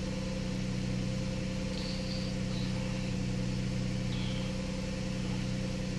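The 2011 VW Routan's 3.6-litre Pentastar V6 idling with a steady, even hum, heard from inside the cabin.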